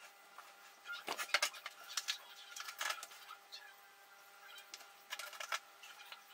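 Quick runs of clicks and scratches about a second in, near three seconds and again after five seconds, over a faint steady hum.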